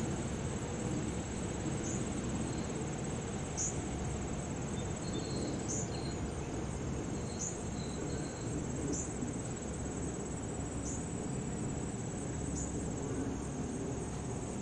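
Insects trilling steadily in the grass, a continuous high pulsing buzz with a short sharper chirp repeating about every two seconds, over a low background rumble.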